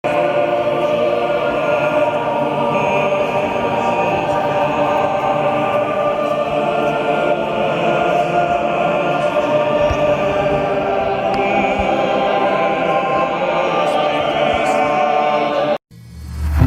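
Intro music: a choral, operatic-sounding piece with many voices holding long chords over an orchestra. It cuts off suddenly near the end, and a different piece with a heavy bass beat starts.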